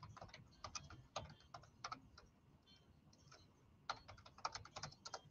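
Faint typing on a computer keyboard: quick runs of key clicks, a pause of about a second and a half midway, then a fast burst near the end.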